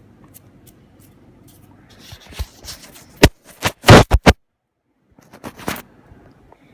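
A run of scratchy scrapes and sharp knocks, loudest around four seconds in, with a few more strokes near the end, while baking soda is being sprinkled into the slime bowl.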